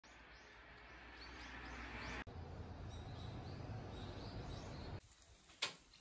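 Wind rushing through the trees' leaves and branches, with small birds chirping over it in quick repeated calls. The rushing cuts off abruptly about five seconds in, and a single sharp click follows.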